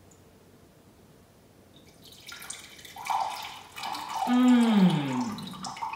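Coffee poured from a glass coffee-maker carafe into a ceramic mug, the pour starting about two seconds in. About four seconds in, a low pitched sound slides down in pitch over roughly a second.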